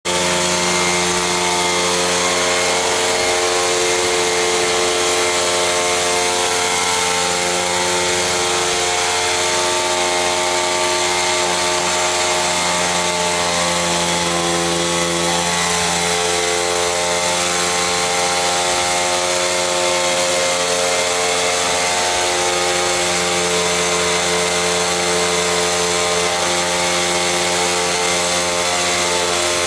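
Small RC helicopter's O.S. FS-52 four-stroke model engine, converted to spark-plug ignition and burning gasoline mixed with cooking oil, running steadily in a hover together with the rotor. The pitch holds fairly steady, with small rises and dips near the middle.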